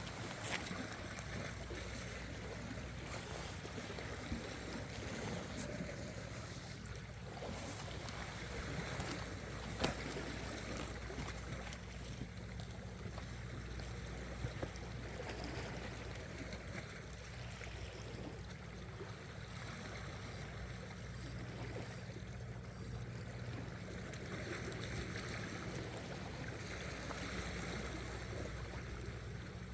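Steady wash of sea water with a low hum underneath, and a few faint knocks, one sharper about ten seconds in.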